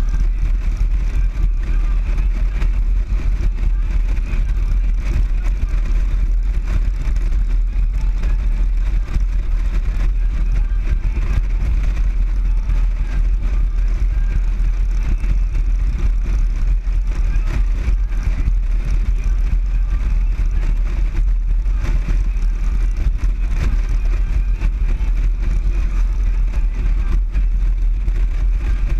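Motorcycle cruising at a steady speed, heard from on board: a loud, steady low rumble of wind buffeting the microphone together with the engine.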